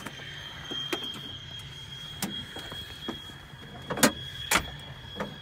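Scattered sharp knocks and clicks as someone climbs into the cockpit of an L-29 jet trainer. The loudest two come about four seconds in, half a second apart, over a steady thin high whine and a low hum.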